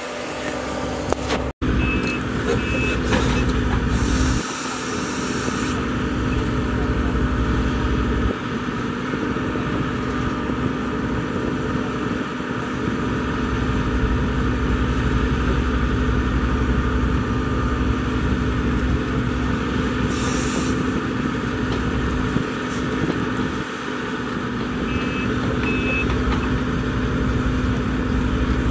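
Case CX130D long reach excavator's diesel engine running steadily under hydraulic load while digging. A high hiss comes twice, and two pairs of short high beeps sound, one near the start and one near the end.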